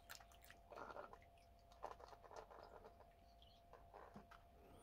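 Faint trickling and a few soft drips of water poured slowly from a plastic measuring cup into a plastic pouch. Near silence between them.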